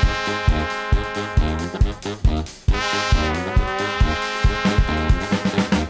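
Brass band music: trumpet and trombone playing held notes over bass saxophone and a drum kit keeping a steady beat of about two strokes a second. There is a brief break about two and a half seconds in, then a new held chord.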